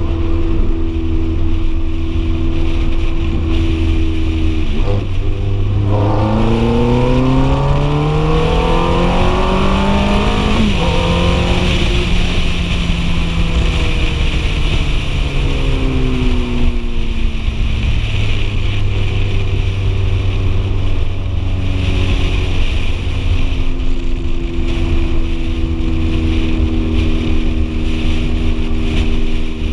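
Ferrari F430 Spider's V8 engine cruising steadily, then revving up hard from about five seconds in, dropping sharply once as it shifts up, and falling away as it eases off before settling back to a steady cruise.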